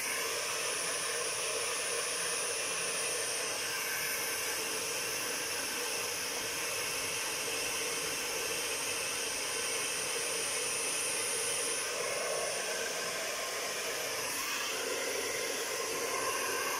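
Handheld hair dryer running steadily, blowing on a dog's coat; its rushing sound shifts a little in tone as it is waved about.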